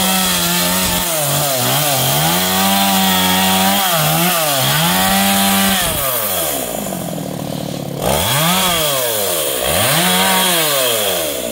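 Two-stroke chainsaw cutting into a felled coconut palm's crown, running at high revs with brief dips under load. About six seconds in it drops to idle, then it is revved up and let back down twice near the end.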